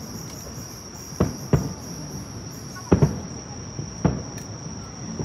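Distant aerial fireworks shells bursting: about five separate booms, each with a short rumbling echo, two of them in quick succession about halfway through. Under them, insects trill at one steady high pitch.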